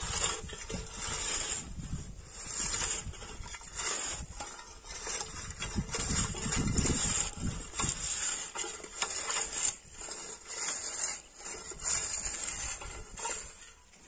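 Hand-pushed wheel weeder with a bicycle wheel and a flat steel sweep blade worked through tilled, cloddy soil. The blade scrapes and crunches through the clods in pushes about once a second.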